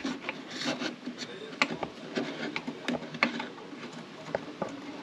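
Handling noises: irregular light clicks, taps and rubbing as a carbon-fibre part with a stainless wire pin is fitted by hand against a carbon-fibre hull.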